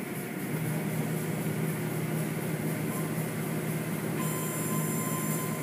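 Automatic car wash equipment running over a car, a steady mechanical hum with hiss. About four seconds in, a thin steady tone and more hiss come in.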